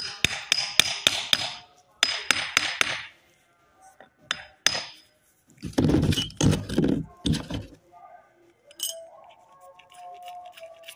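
Hammer striking the steel body and pitman arm of a Toyota Land Cruiser power steering box. Two quick runs of ringing metallic taps come in the first three seconds, then a few single strikes. A heavier, low-pitched stretch of sound lasts about two seconds around the middle.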